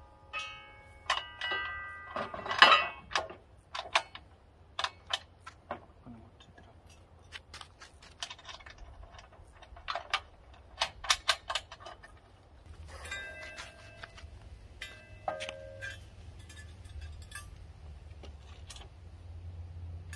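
Steel bolts and sawmill bed parts clinking and tapping as they are handled and fitted together: scattered sharp clicks, with short metallic rings near the start and again about two-thirds of the way through.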